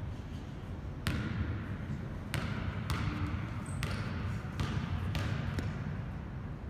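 A basketball bounced on a gym floor five or six times at uneven intervals, each bounce echoing in the hall, as a player dribbles before a free throw.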